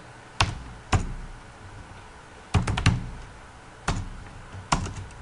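Computer keyboard being typed on in scattered keystrokes: single sharp key clicks with pauses between them, and a quick run of three about two and a half seconds in.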